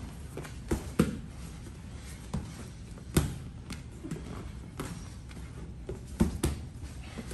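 Bare hands and feet slapping and thumping on foam grappling mats as a grappler moves around his partner, in irregular knocks, about eight over several seconds.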